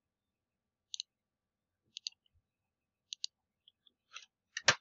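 Computer mouse clicking: three quick double ticks of a button press and release, about a second apart, as points are picked on screen. Near the end a single louder, duller knock.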